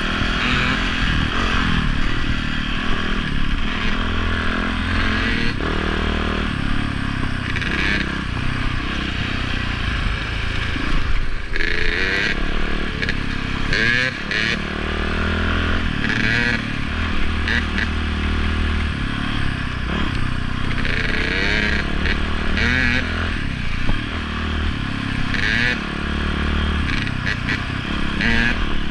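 Dirt bike engine running as the bike is ridden over a rough dirt trail, its revs rising and falling with the throttle, with clattering and scraping from the bike over the bumps.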